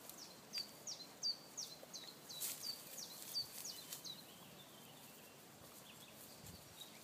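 A small songbird singing a run of about a dozen short, high notes, each falling in pitch, at about three a second. It stops about four seconds in, leaving fainter twittering over the woodland background.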